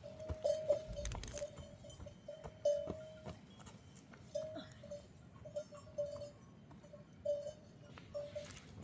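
Livestock bells on a flock of sheep or goats clanking irregularly, a short ringing tone every half second or so, among scattered sharp clicks and knocks.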